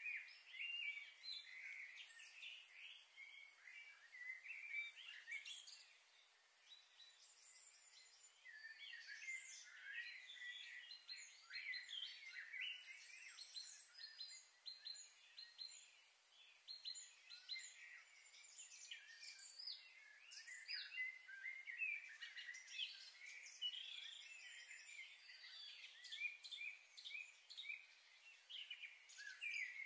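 Faint, continuous chirping and twittering of many small birds, with a couple of brief lulls.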